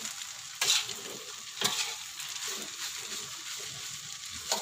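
Noodles sizzling in hot oil in a wok while a spatula stirs and turns them, a steady hiss with three sudden louder surges.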